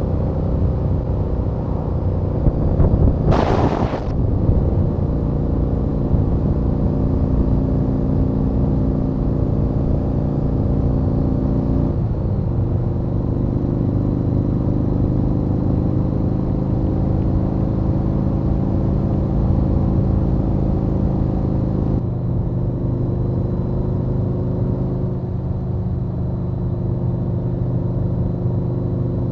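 Yamaha Warrior 1700's V-twin engine running steadily at cruising speed, heard from the rider's seat. Its note steps down about twelve seconds in and again about twenty-two seconds in, and a brief loud whoosh cuts across it about three and a half seconds in.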